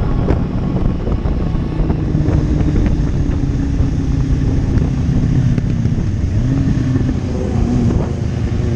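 Motorcycle engine running steadily while riding, over a constant low rumble, its pitch shifting slightly near the end.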